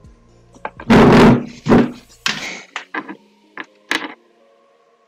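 A string of knocks and bangs with scraping noise, loudest about a second in, then a few sharp clicks, over faint background music.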